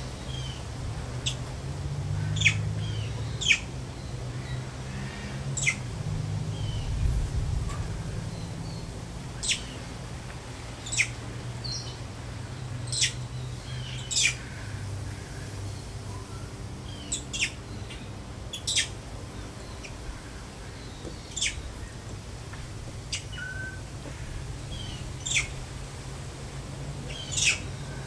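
Short, sharp, high-pitched chirps, one every second or two, each a quick downward sweep, over a low steady hum.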